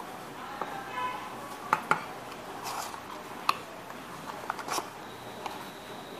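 Cardboard phone packaging being handled: scattered light taps, clicks and rustles as paper inserts and accessories are lifted out of the box and set down.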